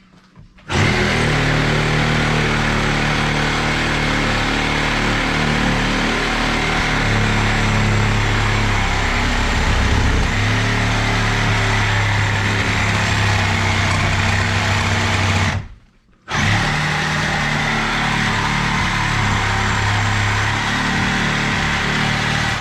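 Handheld electric power tool running hard and steadily. It stops for a moment about two-thirds of the way through, then starts again.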